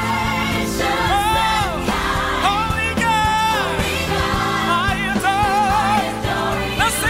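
Live gospel music: a male singer holding long, wavering sung notes and runs over band accompaniment.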